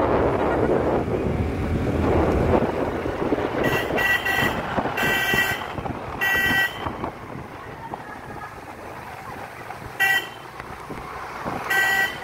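Ride noise on a moving motor scooter: wind and road rush, louder for the first few seconds. From about four seconds in, a vehicle horn honks in a series of short toots, a few lasting about half a second.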